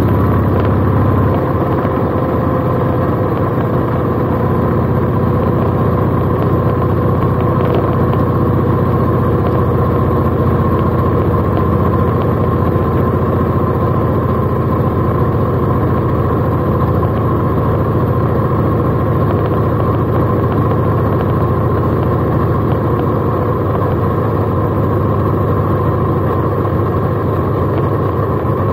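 Cruiser motorcycle's engine running steadily while the bike is ridden along a road, an even, unbroken hum with little change in pitch.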